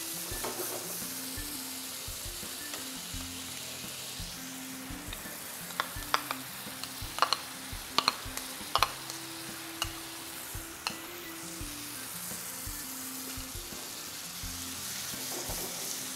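Marinated chicken and masala sizzling steadily in a nonstick frying pan as chopped tomatoes are added. A dozen or so sharp knocks of a utensil against the pan come in a cluster around the middle.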